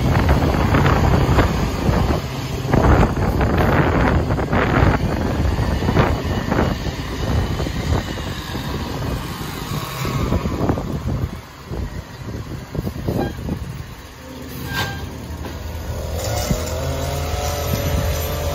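Natural-gas Mack MRU garbage truck with a McNeilus rear-loader body on the move, its engine running under repeated rattling and knocking for the first half. The sound eases off for a few seconds past the middle, then settles into a steadier engine hum with a faint whine near the end.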